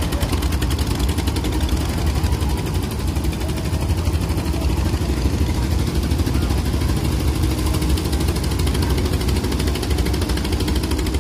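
Boat engine running steadily, a fast even beat of firing pulses with a heavy low rumble.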